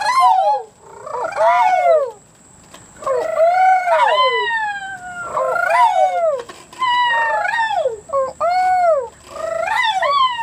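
A person's voice making imitation animal calls: a string of whooping cries, each rising and then falling in pitch, about one every second.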